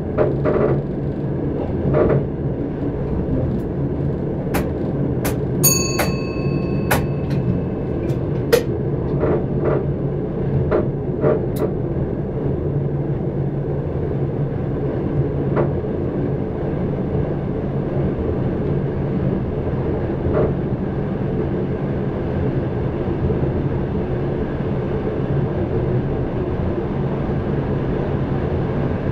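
Dutch NS electric passenger train running, heard from the driver's cab: a steady drone and rumble of wheels on the rails. Scattered clicks come over the first twelve seconds or so, and a short high beep sounds about six seconds in.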